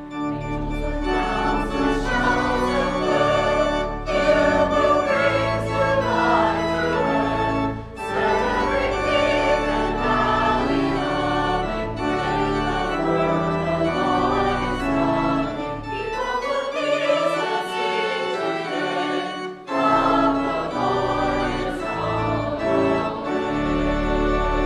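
Many voices singing a hymn with organ accompaniment, in phrases of about four seconds with short breaks between them. The organ's lowest bass notes drop out for a few seconds past the middle.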